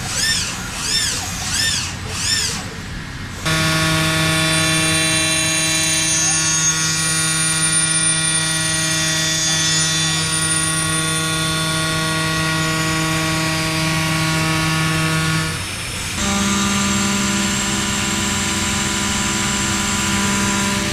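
WFL M60 mill-turn machine cutting a steel crankshaft. At first a whine rises and falls about twice a second, then about three seconds in it gives way to a steady, many-toned cutting whine. That whine drops out briefly around the three-quarter mark and resumes at a slightly higher pitch.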